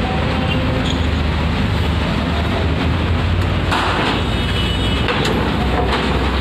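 Coach bus's diesel engine running low as the bus drives slowly off a ferry ramp, with a brief hiss about four seconds in.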